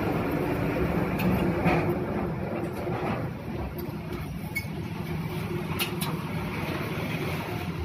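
A few sharp metal clinks of a ring spanner working the nuts on a tractor's rear wheel hub, over a steady low mechanical hum.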